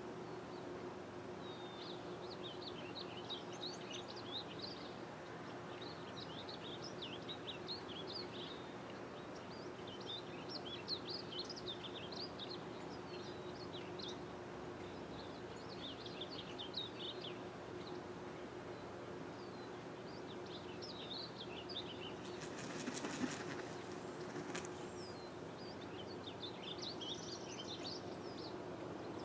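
A songbird singing rapid warbled phrases of quick chirping notes, each phrase a second or two long, repeated every few seconds over a steady low hum. About 23 seconds in there is a short burst of rustling noise with a few clicks.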